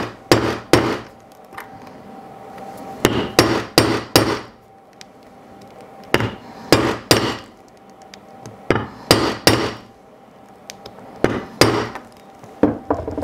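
Copper rivet being domed over on a leather strap: a metal rivet-doming setter held on the rivet and struck repeatedly, in short groups of two to four sharp blows every few seconds, over a steel plate on a stone slab.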